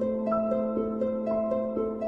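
Background music: plucked, harp-like notes in a repeating run of about four a second over a held low note.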